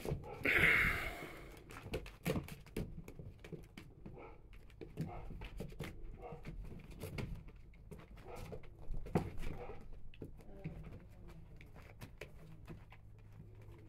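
A litter of three-week-old Goldador puppies shuffling and scrabbling on blankets and a plastic pool floor, with soft panting and small puppy noises. There are scattered light clicks and a louder burst of noise about a second in.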